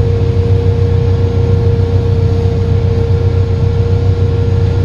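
Versatile tractor engine pulling a loaded grain cart, a loud steady drone heard inside the cab, with a constant high whine on top.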